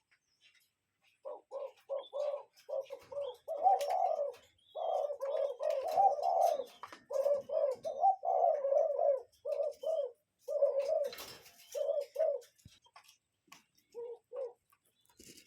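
A bird calling in a long, rapid run of low hooting notes, about three or four a second, some of them warbling. The run starts about a second in, stops about three seconds before the end, and a couple more notes follow.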